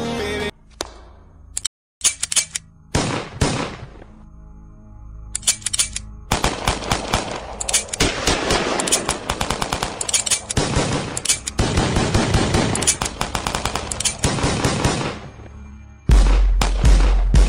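Rapid machine-gun-style gunfire sound effects in stop-start bursts, over a few faint held musical notes; near the end a heavy bass beat comes in under the shots. A sung pop song cuts off just before the first bursts.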